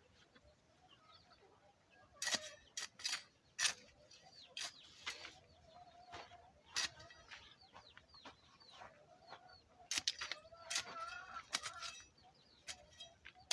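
Chickens clucking in the background, with a scattered series of sharp knocks and scrapes from digging and replanting in garden soil.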